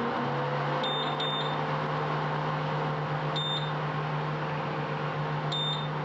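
Prestige PIC 6.0 V2 induction cooktop's touch control panel beeping as its buttons are pressed: four short high beeps, two close together about a second in, one in the middle and one near the end. Under them runs the cooktop's cooling fan, a steady hum and whirr.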